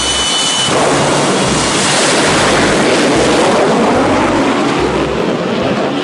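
Jet engine of a jet-powered school bus drag racer running at full power, a loud steady rushing noise; a thin high whine at the start fades out under it.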